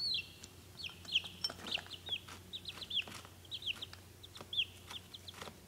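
Baby chicks peeping: a rapid, continuous run of short, high cheeps from several chicks together, with a few light knocks among them.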